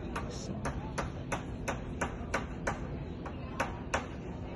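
Steady, evenly spaced clicking, about three ticks a second, over low background noise.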